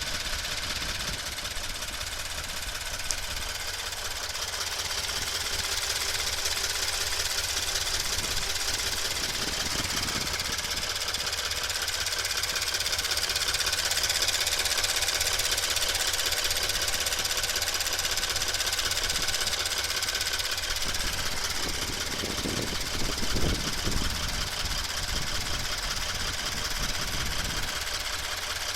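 Subaru BRZ flat-four engine running with an abnormal noise: a dense, fast ticking over the steady engine sound. A low rumble swells briefly about 22 seconds in.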